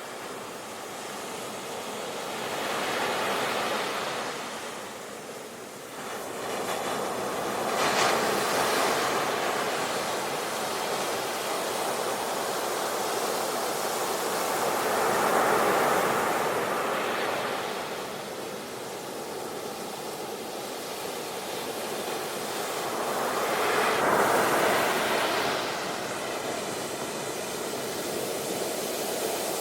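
Ocean surf: waves breaking and washing ashore in slow swells that rise and fall about four times, with a sharper splash about eight seconds in.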